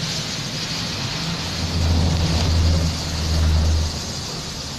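Bus engine droning low, heard from inside the cabin, over a steady hiss of tyres on a wet road. The drone swells for about two seconds from just under two seconds in, then eases off.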